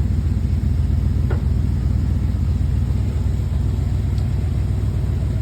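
1965 Chevrolet Impala engine running steadily with a low, even rumble, its carburetor under repair.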